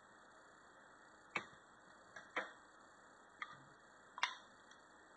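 Small sharp clicks and taps, about five of them spread irregularly, as metal regulator parts and tools are handled and set down during reassembly; the loudest comes near the end.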